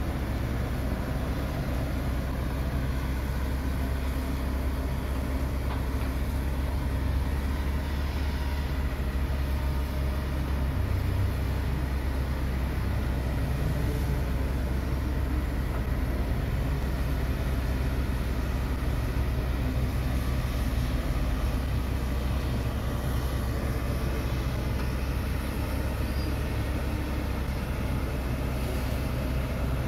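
Hitachi Zaxis 130 amphibious excavator's diesel engine running steadily, mostly low in pitch, while its long-reach boom and arm are worked.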